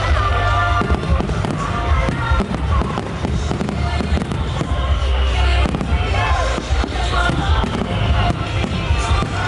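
Aerial fireworks bursting and crackling in a rapid, continuous barrage over loud music with a heavy bass beat.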